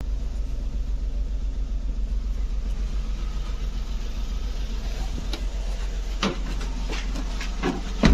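A Maruti Suzuki car's petrol engine idling steadily after finally being started. A few sharp clicks or knocks are heard in the last three seconds, the loudest near the end.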